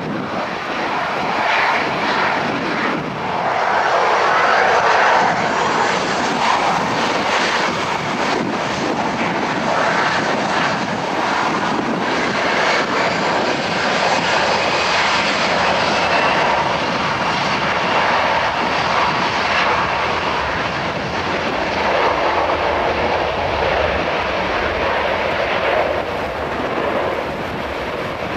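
The CFM56 turbofan engines of a Boeing 737-400 running at high power as the airliner rolls down the runway for takeoff: a continuous jet roar with a faint high whine. The sound grows louder about three seconds in.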